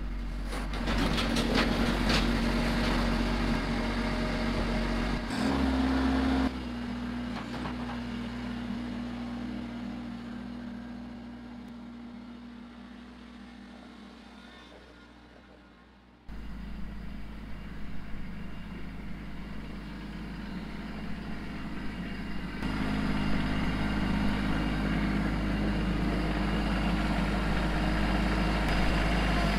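Compact tractor's engine running steadily. The sound breaks off and changes at several cuts, fades down over the middle stretch, then comes back louder and steadier near the end.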